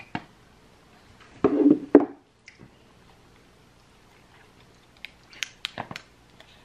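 Small handling noises of an iPhone 11 Pro Max and its cardboard box being unboxed: a click as the lid comes off, a short louder sound about a second and a half in, then a quick cluster of sharp little clicks and taps around five to six seconds in as fingernails and the phone knock against the box tray.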